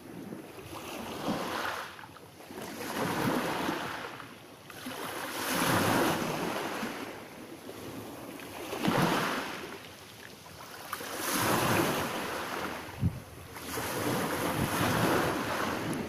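Small sea waves breaking and washing up onto a pebble beach, surging and falling back about every two to three seconds.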